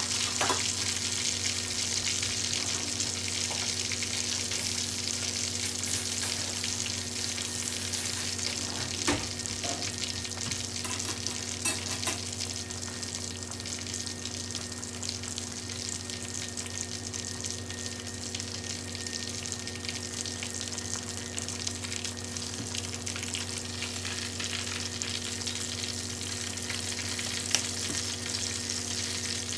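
Pork belly deep-frying in oil in a stainless steel skillet: a dense, steady sizzle and crackle of bubbling oil, with a few sharper pops scattered through. A steady low hum runs underneath.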